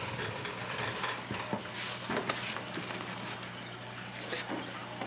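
Faint scattered clicks and rustles of tools being handled while someone searches for a drill bit, over a steady low hum.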